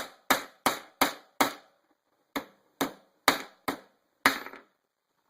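A hammer tapping on a small socket to drive the shaft back into a DYS 2206 brushless motor's bell: about ten sharp metal strikes, roughly three a second, in two runs with a pause of about a second between them.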